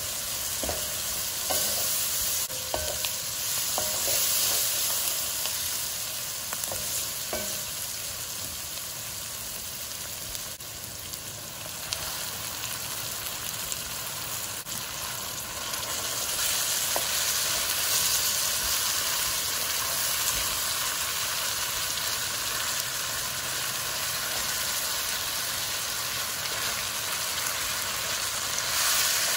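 Diced onions and then ground beef frying in a nonstick pan, a steady sizzle stirred with a spatula, with a few light spatula taps in the first several seconds. The sizzle grows louder about halfway through, once the beef is in the pan.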